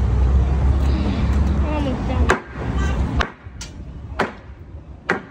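A low rumble that dies away about two and a half seconds in, then about five sharp, separate knocks spaced unevenly, hammer strikes on wood.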